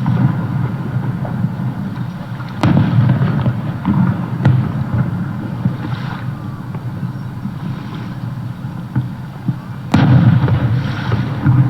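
Aerial fireworks shells bursting at a distance: sharp booms, the loudest about two and a half seconds in and again about ten seconds in, each trailing off in a low rumble with scattered smaller pops.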